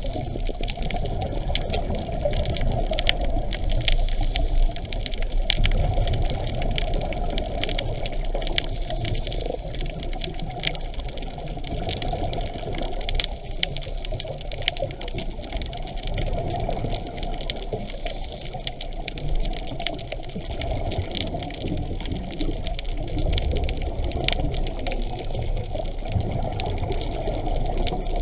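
Muffled underwater sound of a scuba diver's regulator and exhaled bubbles, a continuous gurgling rush, with a steady crackle of small clicks over it.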